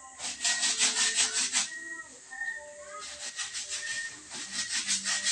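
Wet clothes being scrubbed by hand in a plastic bucket, cloth rubbed against cloth in quick strokes, about five a second. The scrubbing comes in two bursts with a pause between.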